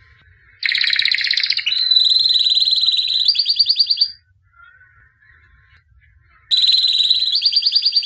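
White domestic canary singing: rapid trills that start about half a second in and change through several rolling phrases for about three and a half seconds, break off, then start again near the end.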